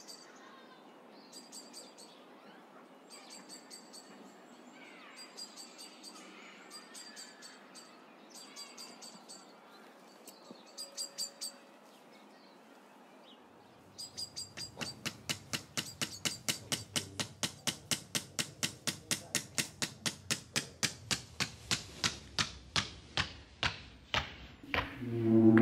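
Traditional Samoan tattooing tools tapping: a wooden mallet striking the toothed tattooing comb. Faint, broken bursts of taps come first, then after a short pause a steady run of sharp taps about four a second that grows louder.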